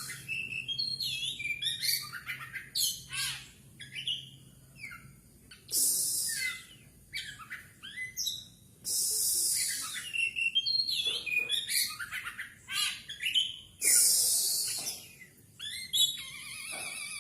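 Songbirds singing loud, fast, varied whistled phrases, broken every few seconds by harsh rasping bursts about a second long.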